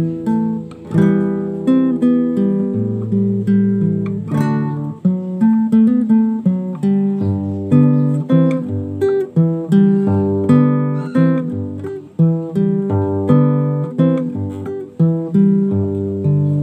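Nylon-string classical guitar played solo fingerstyle: a melody picked over bass notes and chords, with one sharply strummed chord about four seconds in.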